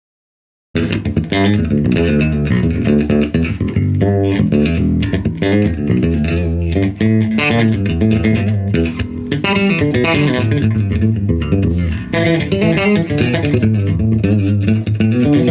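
Elegee Mini Datu five-string electric bass (alder body, maple neck, Elegee Supremo pickups) played clean on its bridge pickup: a busy run of plucked notes that starts just under a second in and keeps going without a break.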